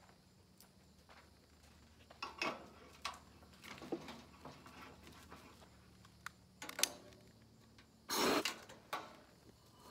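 Cookware and utensils handled at a camp stove: scattered clinks and knocks of pans and utensils. A louder short hiss comes about eight seconds in.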